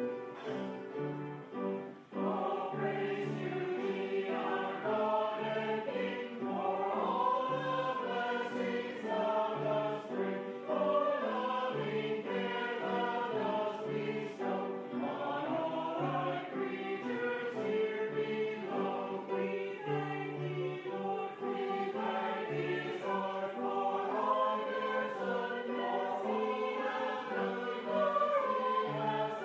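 Choir singing a sacred piece in sustained chords over a moving bass line.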